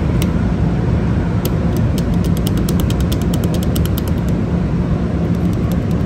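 Loud, steady low mechanical rumble with a steady hum in it. About a second and a half in, a rapid run of light clicks, several a second, lasts about three seconds.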